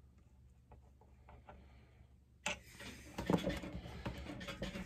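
Faint scattered clicks of a small hand tool working on a chainsaw's reed and intake screws. About two and a half seconds in, a denser run of metal clicks and clatter starts as parts are handled on the saw.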